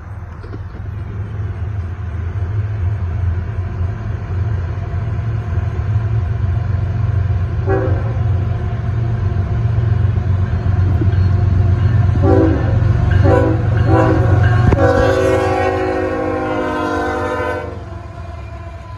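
CSX ES44AH diesel-electric locomotive approaching and passing, its engine rumble growing steadily louder, with its multi-note air horn sounding: one short blast, then three short blasts, then one long blast of about three seconds that cuts off as the locomotive goes by.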